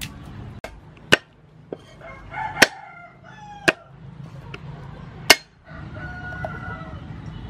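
About four sharp knocks of a knife blade on a round wooden chopping board, roughly a second apart. A rooster crows and chickens cluck in the background.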